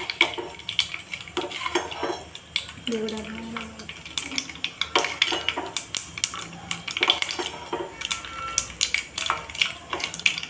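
Steel spoon clinking and scraping against a small steel pot while stirring tempering seeds frying in oil, a quick, irregular run of clinks.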